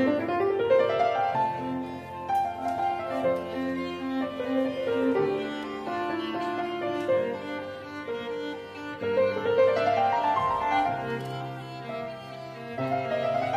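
Instrumental background music of bowed strings and piano, with rising runs of notes near the start and again about ten seconds in.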